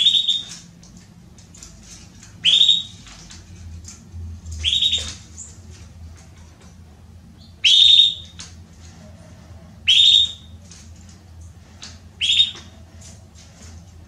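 Female domestic canary calling to be mated: six loud calls two to three seconds apart, each a quick upward sweep that levels off high, with faint chirps in between.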